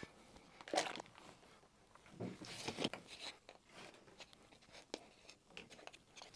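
Light clicks, taps and rustles of a plastic supplement tub and scoop being handled as pre-workout powder is scooped out.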